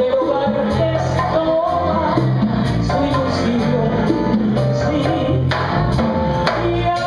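Live band playing: a woman singing into a microphone over electric bass, drums and percussion.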